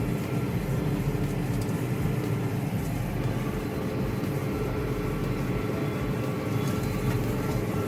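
Farm tractor engine running steadily at constant speed, a continuous drone with a steady low hum.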